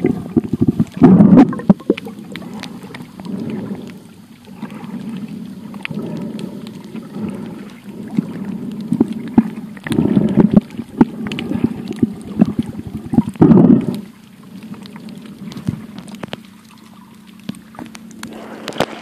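Muffled underwater noise picked up by a phone held under the sea: low sloshing and rumbling of water that swells every two to three seconds, with many crackles and clicks from the phone being moved.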